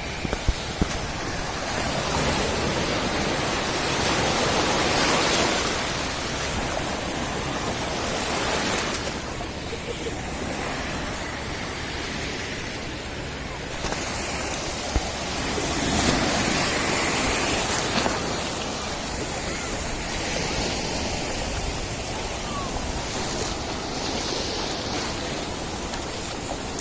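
Sea surf breaking and washing up a beach: a steady rushing noise that swells louder every few seconds as waves come in.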